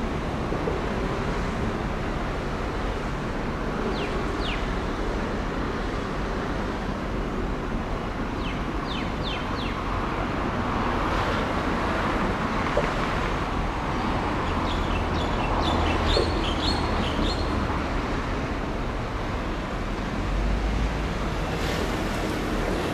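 Steady outdoor traffic and wind noise that swells a little in the middle. Short high chirps come in quick runs of two to six, about four seconds in, around nine seconds in, and again later.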